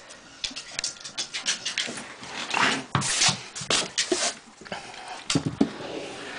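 A cocker spaniel making short breathy sounds and small whines, among light knocks and rustles from a wooden drawer holding tennis balls.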